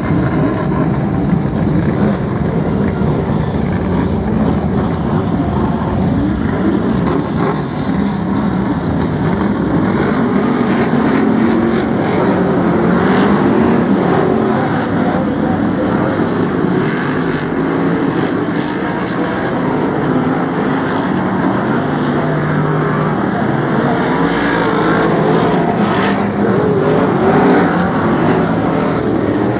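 A pack of BriSCA F1 stock cars' V8 engines racing together on the oval, a continuous loud engine din whose pitch rises and falls as the cars accelerate and ease off, with a couple of brief sharp knocks partway through.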